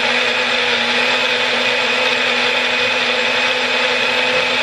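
Magic Bullet personal blender running steadily, blending a fruit smoothie, with an even motor whine.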